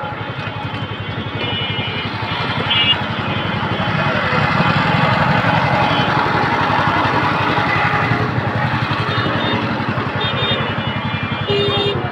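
Dense street traffic close by: auto-rickshaw and motorbike engines running, swelling louder near the middle. Short high-pitched warning signals sound several times near the start and near the end.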